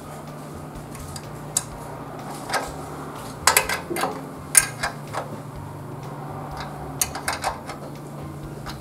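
Irregular sharp metallic clicks and clinks of an open-end spanner working the seat-post clamp bolt of a GRAPHIS GR-16 children's bicycle as the saddle is clamped partway, not yet fully tightened. The clicks come in small clusters around the middle and near the end, over a low steady hum.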